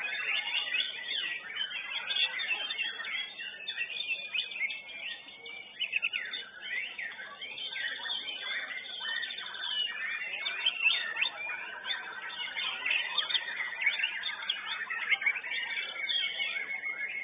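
White-rumped shama (murai batu) singing in full contest song: a rapid, varied stream of whistles, trills and sweeping notes with no pauses.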